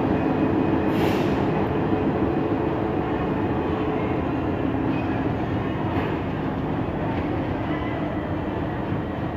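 65-series diesel locomotive running light and moving away, its engine drone steady and slowly fading. There is a brief hiss about a second in.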